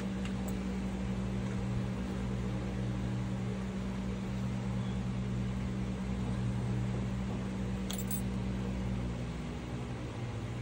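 A steady low mechanical hum, with its pitch dropping slightly about nine seconds in. A brief small metallic click comes about eight seconds in.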